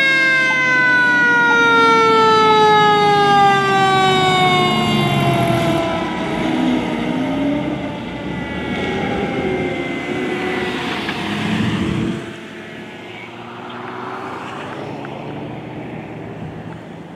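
Federal Signal Q2B mechanical siren on a fire engine, spun up just before and then winding down in one long, slowly falling wail that fades over the first several seconds. The fire truck's engine runs underneath as it passes, and the noise drops off about twelve seconds in.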